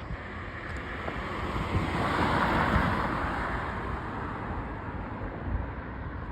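A vehicle passing on the street: a rush of road noise that swells to a peak about two and a half seconds in, then fades away.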